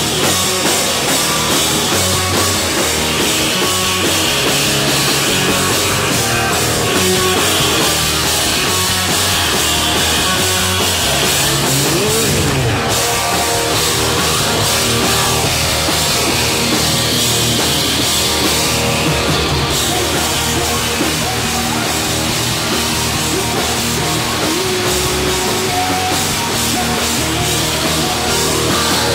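Live rock band playing loud, fast rock: distorted electric guitar, bass guitar and drum kit, with a note sliding up and back down about twelve seconds in.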